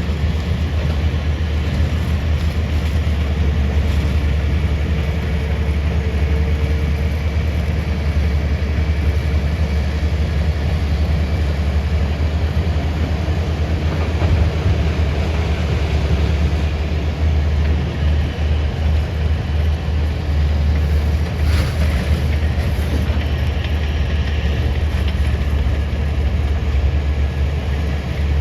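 Tata Hitachi hydraulic excavator's diesel engine running steadily with a deep rumble, and a short sharp knock about three-quarters of the way through.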